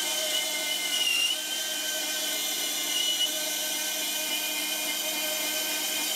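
Benchtop bandsaw running and cutting along a wooden guitar neck blank: a steady machine whine whose pitch dips briefly about a second in.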